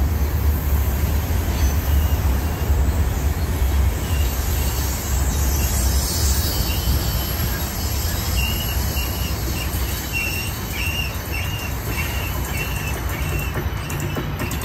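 Freight train cars rolling past, a steady heavy low rumble of wheels on rail. Over the middle part a short high-pitched chirp repeats about twice a second.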